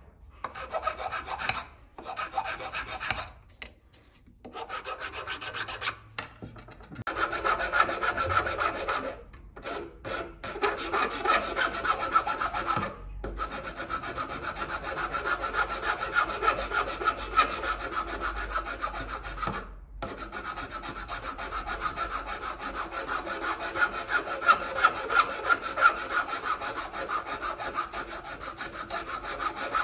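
Metal hand file rasping back and forth along the edge of a 3D-printed plastic letter-opener blade in quick, short strokes. There are several brief pauses in the first half, and the filing runs without a break after that.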